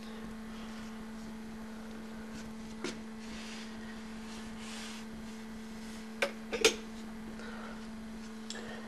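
Steady low electrical hum, one unchanging tone, with a few short sharp knocks; the loudest are a pair about six and a half seconds in.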